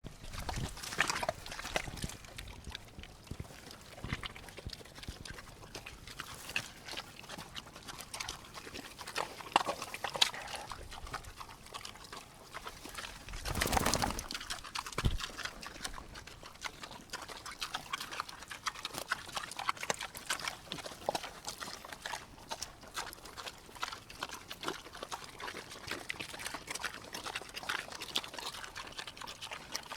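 Pigs eating and slurping in mud: irregular wet smacking and chomping, with one louder, longer burst about fourteen seconds in.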